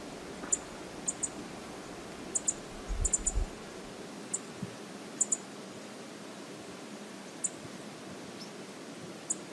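River water rushing steadily, with a scatter of short, sharp high ticks, some in quick pairs, and a few low thumps about three seconds in.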